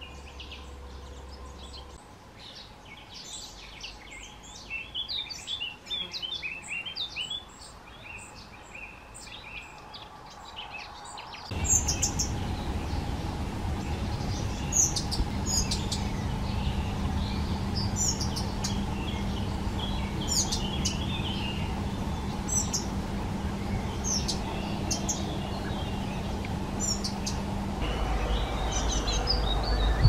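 Small songbirds chirping and calling. Dense, busy twittering comes first. It gives way abruptly to sharp high single calls repeated every second or two over a steady low hum.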